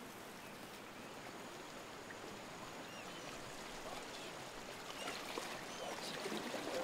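Faint, steady wash of calm sea water lapping against a rocky shore, growing a little louder near the end, with a few faint high chirps.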